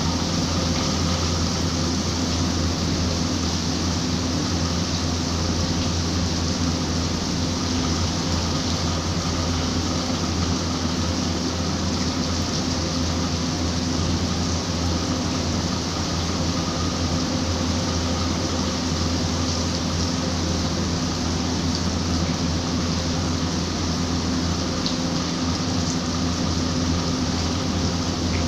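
Steady rain falling, a continuous even hiss with a constant low hum under it.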